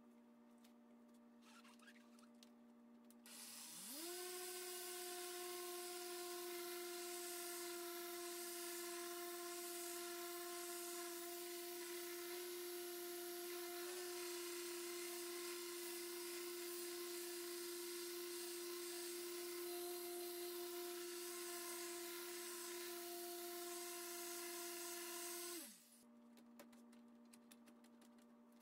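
Handheld electric orbital polisher with a foam pad spinning up about four seconds in and running at one steady pitch while buffing the painted cowl panel, then winding down near the end. A few light ticks and taps follow over a faint steady hum.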